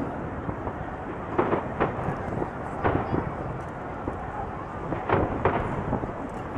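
Distant aerial firework shells bursting over a continuous rolling rumble. Sharp bangs stand out in pairs about a second and a half in, near three seconds, and just past five seconds.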